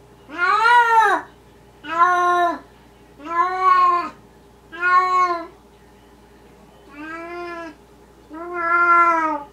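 A cat meowing repeatedly: six drawn-out meows, each rising then falling in pitch, about one every second and a half, the fifth softer than the others.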